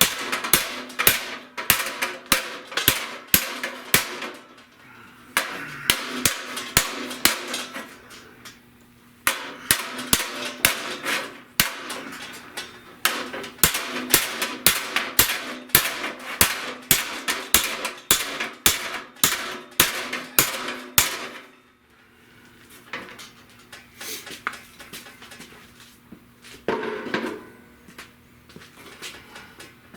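Hand hammer beating the sheet-steel radiator support panel into shape: quick repeated blows, about three to four a second, in runs with short pauses. After about twenty seconds the blows give way to fewer, lighter taps.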